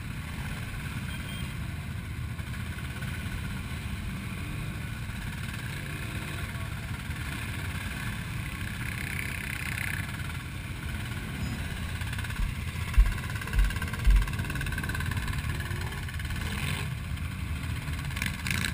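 Several quad bike (ATV) engines idling and running at low speed together, a steady low rumble. Three short low thumps come about two-thirds of the way through.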